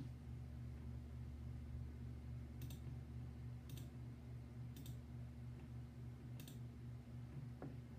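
Four sharp, short clicks, spaced about a second apart through the middle of the stretch, over a steady low electrical hum.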